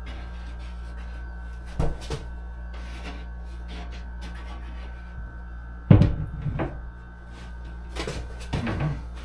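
Knocks and bumps from handling the shower kit's wall panels: two sharp knocks about two seconds in, a heavy thump about six seconds in, and a cluster of knocks near the end, over a steady low hum.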